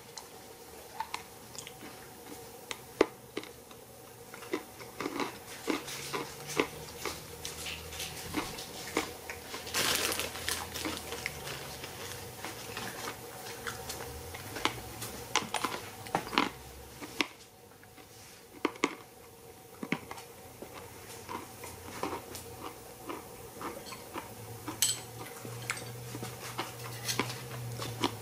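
Irregular crackling and snapping of a small high-voltage radio-frequency discharge from a Collins tube transmitter's output, with a few louder snaps. Under it is a faint steady hum, with a low tone that changes pitch now and then.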